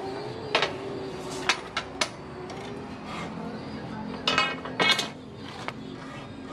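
Scattered metal clinks and knocks of a hacksaw and square steel tube being handled and set against each other before a cut, with the loudest cluster a little past four seconds.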